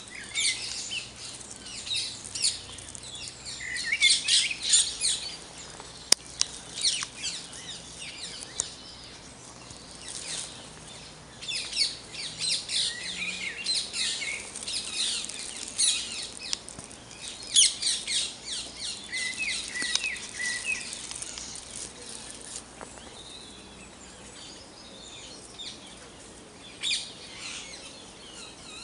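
Dawn chorus: several songbirds singing and calling over one another in overlapping bursts of high chirps and song phrases. A single sharp click comes about six seconds in.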